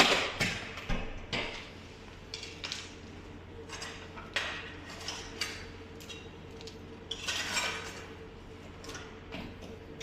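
Metal tools clicking, scraping and clinking against a door lock as it is worked open and taken out, in irregular bursts with a cluster at the start and another about seven seconds in.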